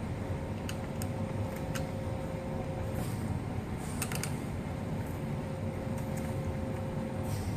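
A few light, sharp clicks of a small screwdriver on the laptop's hinge screws and plastic frame, over a steady room hum.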